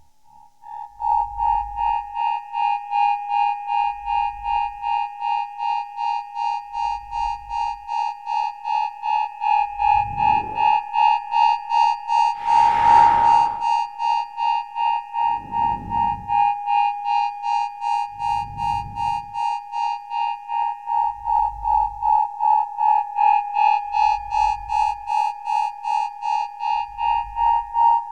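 Electronic synthesizer loop: a high beeping tone pulsing about two to three times a second over a deep bass pulse roughly every three seconds. Swelling whooshes build up and fade in the middle.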